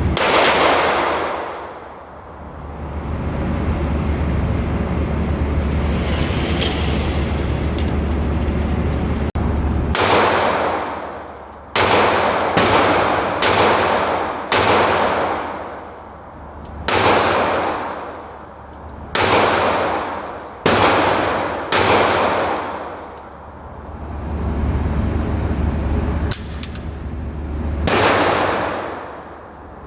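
Pistol shots from a SIG Sauer P365 with an XL grip, fired one at a time: about a dozen shots, each followed by a long echoing tail, with a quick string of five about halfway through. A steady low hum runs underneath between shots.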